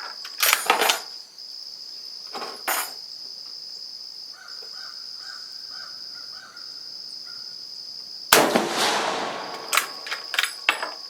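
A 7.35 mm Carcano M38 bolt-action short rifle fires one shot about eight seconds in, its report dying away over about a second, followed by a quick run of metallic clicks as the bolt is worked. Shorter clicks and clacks come near the start and at about two and a half seconds, over a steady high drone of insects.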